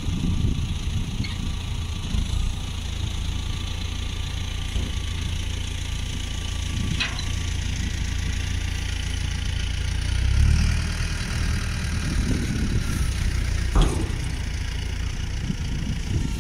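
Tractor engine running with a steady low rumble while it tips a trailer load of manure. The engine swells about ten seconds in, and there are a few sharp knocks, the loudest near the end.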